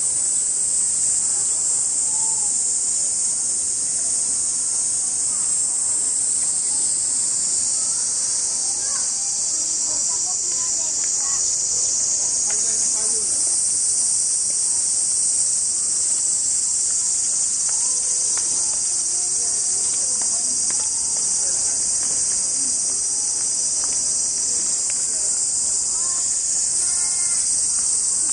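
A loud, steady, high-pitched drone of cicadas singing in the trees, with faint distant voices beneath it.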